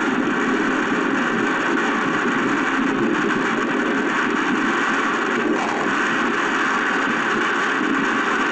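Steady rushing noise of storm wind and heavy rain, heard played back through the security camera's audio.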